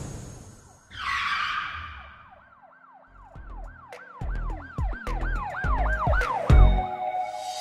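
Channel-intro sound effects: a falling whoosh, then a rapid siren-like yelp that sweeps up and down about two to three times a second. Deep bass hits join and build toward the end, leading into music.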